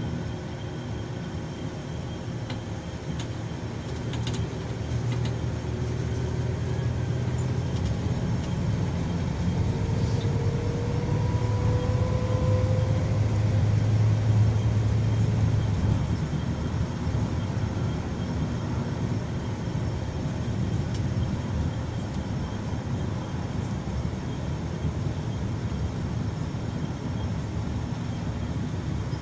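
Scania K340EB coach's rear-mounted nine-litre five-cylinder diesel and road noise, heard from inside the Irizar Century passenger cabin while under way. It is a steady low rumble that grows louder over about ten seconds, with a faint whine rising in pitch. It eases off about sixteen seconds in.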